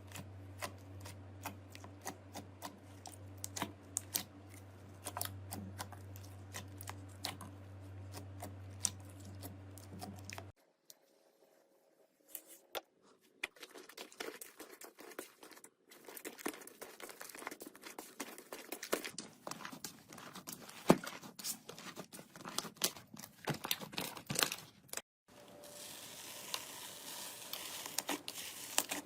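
Slime being pressed, poked and stretched by hand, making many small sticky clicks, pops and crackles. The clips change twice: the first runs over a low steady hum, and the last has a denser crinkling sound.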